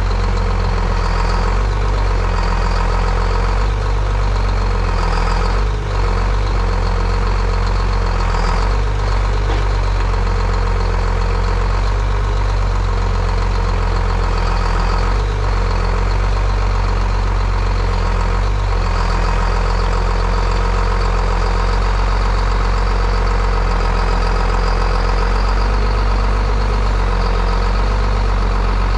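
Log truck's diesel engine running steadily while it drives the hydraulics of its self-loading knuckle-boom crane, loading logs. A higher whine swells briefly several times as the crane is worked, with a few faint knocks.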